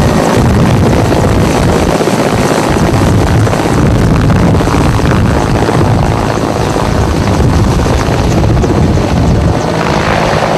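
Loud, steady engine noise mixed with rushing wind, with a low steady hum underneath.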